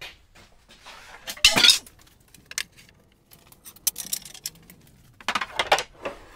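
Oak boards being set down and shifted into place on a clamping rack of galvanized strut channel: a run of irregular knocks and clatter of wood against metal, loudest about a second and a half in and again near the end.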